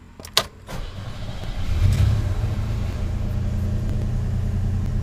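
Chevrolet S-10 pickup started with the key: a sharp click, then the engine cranks briefly and catches about two seconds in, settling into a steady idle.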